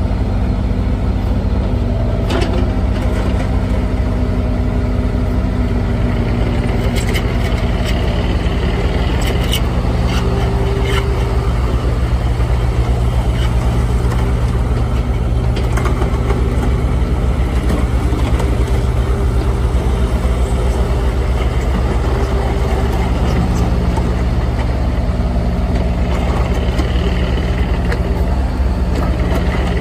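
Bobcat E35 mini excavator's 33 HP Kubota diesel engine running steadily, with occasional clicks and short higher-pitched tones over it.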